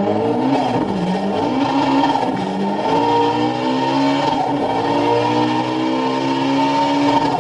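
Car engine held at high revs under hard acceleration, its pitch slowly climbing with a few small dips, heard from inside the cabin.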